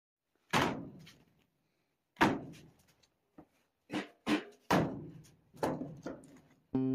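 A series of sharp knocks and thunks as painting supplies are set down on a cabinet top: a plastic palette tray and a box of acrylic paint bottles, then a cloth brush roll. There are seven separate knocks, the first two the loudest.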